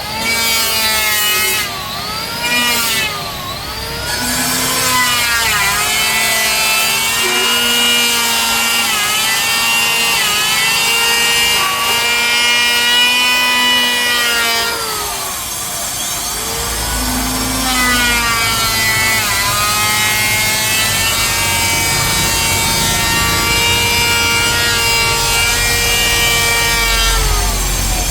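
Electric power saw ripping Bayur wood. The motor's whine repeatedly sags in pitch as the blade takes the load and then recovers, easing off briefly about halfway through before cutting again.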